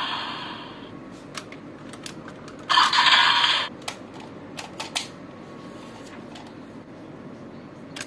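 Plastic clicks from the DX Desire Driver toy belt's buckles being worked by hand, a handful of separate snaps. About three seconds in, a short burst of electronic sound plays from the belt's small speaker.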